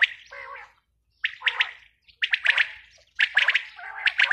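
Caged quails calling: short clusters of sharp, quick notes repeated about once a second, with softer, lower notes in between.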